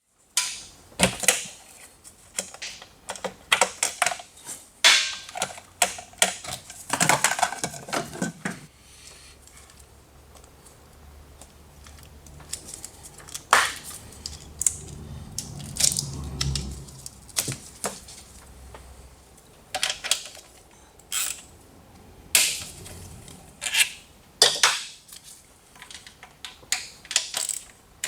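Metal hand tools and small parts clicking and clinking in an irregular run of separate knocks, with a faint low rumble through the middle.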